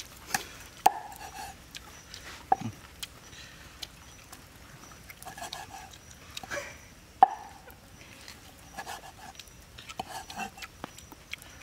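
Large kitchen knife slicing cooked cow stomach on a round wooden cutting board: irregular sharp taps of the blade meeting the board, the loudest about seven seconds in.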